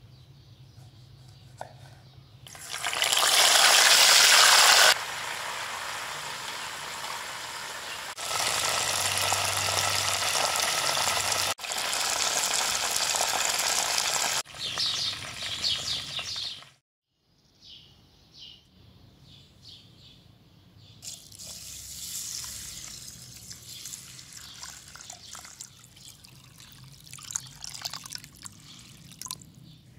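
Hot oil sizzling in a steady hiss around small whole chickens deep-frying in a pot, in several stretches, with a louder hiss a few seconds in. After a brief silence come softer sounds, then water pouring and sloshing as rice is washed in a plastic bowl.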